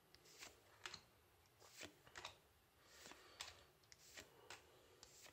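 Faint, light snaps and swishes of Yu-Gi-Oh trading cards being slid one behind another in the hands, about a dozen at an uneven pace of roughly two a second.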